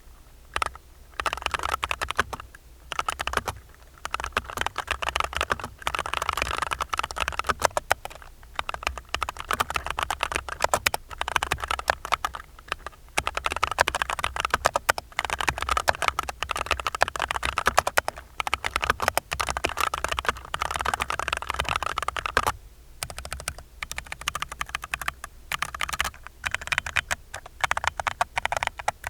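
Fast typing on a mechanical keyboard with FEKER Holy Panda V2 tactile switches, lubed springs and stabilizers and noise-absorbing foam: dense runs of quick keystroke clacks, broken by brief pauses.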